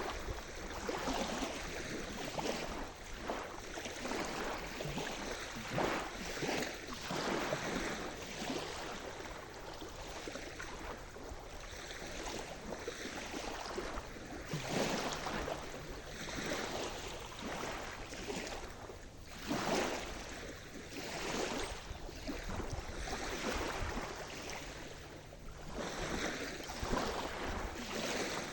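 Sea surf: waves washing and breaking, an irregular rush of water noise that swells and falls, with louder surges about halfway through and a little later.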